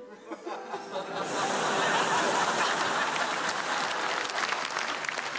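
Studio audience applauding, swelling up over the first second as a short music cue fades out.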